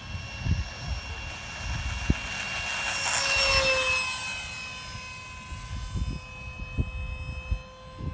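Electric ducted fan of an RC F-18 jet running at high throttle: a steady high-pitched whine with several tones, swelling to its loudest about three and a half seconds in, where the pitch dips a little, then holding steady. Irregular low thumps sound under it.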